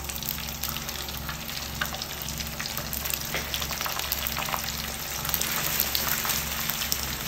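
Prawn crackers deep-frying in hot oil in a pan: a steady sizzle with many small crackles as the dried discs puff up. The quick puffing shows the oil is hot enough.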